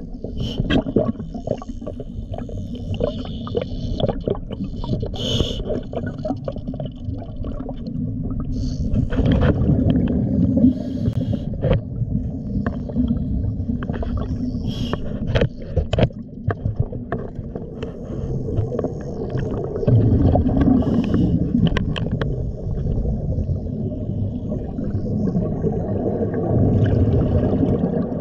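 Underwater sound picked up by a camera: a steady low rumbling wash of water, with scattered sharp clicks and crackles and a few louder gurgling swells.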